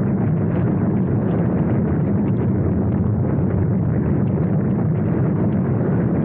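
A steady, loud low rumble with a crackling texture, unchanging throughout.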